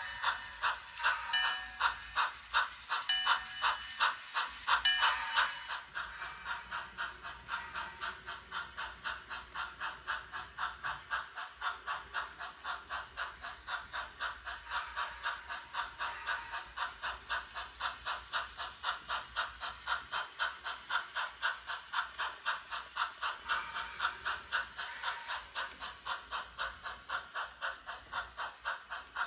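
Sound-equipped HO scale 4-4-0 steam locomotive model running, its steam chuff beating steadily at about three chuffs a second with a light hiss. A few short pitched tones sound over it in the first five seconds or so.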